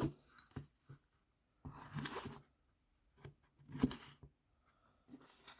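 Old metal wrenches being handled out of a tool roll: faint scattered clicks and a brief rustle about two seconds in, with one sharper knock near the four-second mark.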